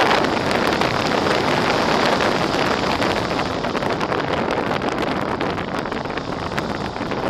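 Wind rushing and buffeting over the microphone of an FPV model plane's onboard camera, a steady rough rush with no clear motor tone.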